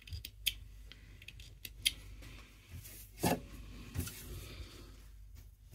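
Faint handling noises at a sewing machine: a few sharp little clicks, then a soft brushing rustle a little over three seconds in and again about a second later as loose threads are swept off the machine bed by hand.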